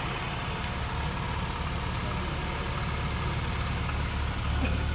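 1995 Rover Mini Mayfair's 1275 cc A-series engine idling with a steady low hum.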